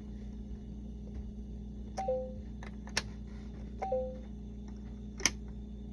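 Plastic letter pieces clicking in and out of the slots of a LeapFrog Fridge Words toy, four sharp clicks, two of them followed by a short two-note falling beep from the toy, over a steady low hum.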